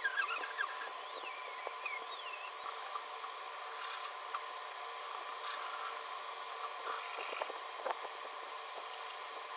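Metal parts of an old bench vise being worked by hand: a high, wavering squeal in the first couple of seconds, then steady rubbing and scraping with a few light knocks near the end.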